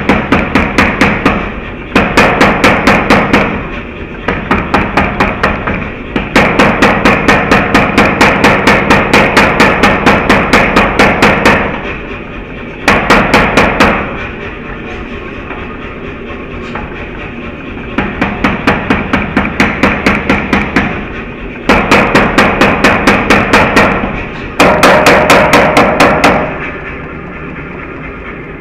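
Power hammer forging a red-hot billet of folded shear steel, striking in runs of rapid, evenly spaced blows, several a second, that stop and start every few seconds. In the gaps a steady forge roar carries on.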